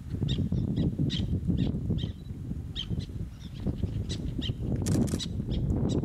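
Black-naped terns calling: a rapid series of short, sharp, high calls, roughly two a second, over a steady low rumble.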